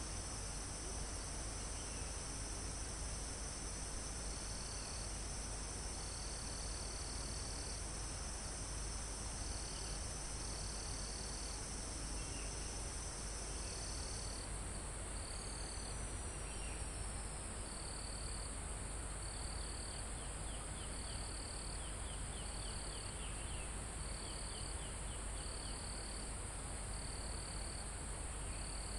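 Forest insects and crickets: one continuous shrill, high-pitched insect drone, with a second shrill buzz that cuts off about halfway through. Over them a cricket chirps in short repeated trills, with a few faint rapid ticking trills near the end, over a steady low background hiss.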